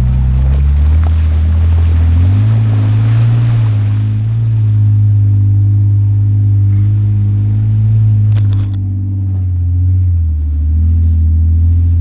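Off-road truck engine pulling hard up a steep climb, its pitch rising about two seconds in and falling back near the end. A short knock sounds near the end.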